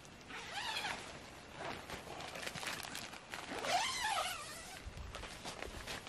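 A tent door zipper pulled twice, a short rasp about half a second in and a longer one around four seconds, each rising then falling in pitch, with rustling and handling of gear in between.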